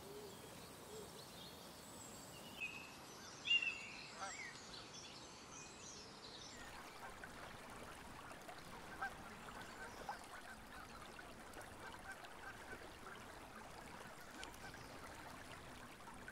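Quiet pond-side ambience with bird calls: a few short calls in the first few seconds, the loudest about three and a half seconds in, then from about six and a half seconds on, many faint, repeated waterfowl calls.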